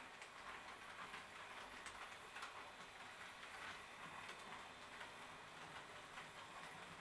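Faint sound of a Roco HO-scale model train running with its coaches: a quiet steady hiss with a few scattered light clicks.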